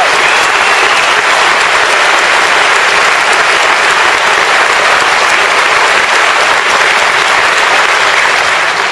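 Large audience applauding loudly, a dense steady clapping that starts to die away at the end.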